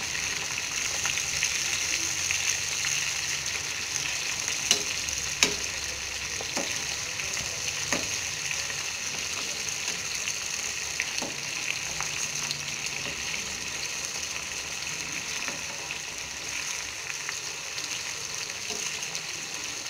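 Masala-coated chicken pieces frying in hot sunflower oil: a steady sizzle. A steel spoon clicks against the pan a few times as the pieces are turned.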